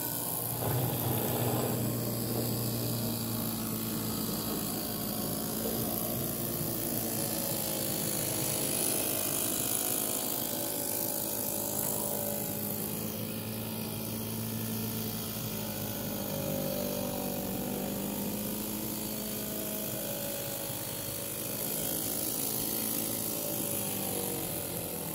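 Miniature live-steam traction engine running under steam as it drives along, a steady fast mechanical whirr from its little engine and gearing that wavers slightly in pitch.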